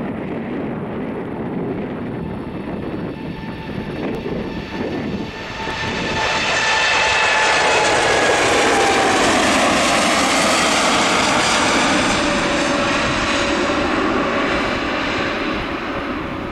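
Four GEnx-2B67 turbofans of a Boeing 747-8F at takeoff thrust. A rumble at lift-off grows much louder about five seconds in as the jet climbs past, with whining tones that fall in pitch as it goes by, and the sound fades slowly near the end as it climbs away.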